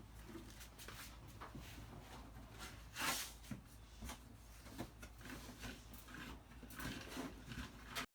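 Faint scattered knocks and rustles of things being handled, with one louder, brief rustling burst about three seconds in, over a low steady hum.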